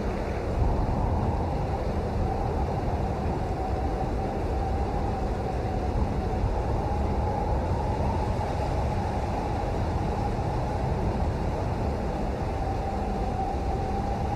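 Steady rain noise, a dense, unbroken hiss weighted toward the low end, with a faint steady tone in the background.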